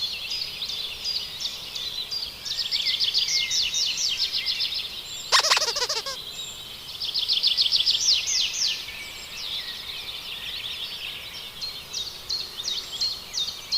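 Many small birds chirping rapidly and without a break in high, quick notes. About five seconds in comes one louder, harsher 'kakak' call.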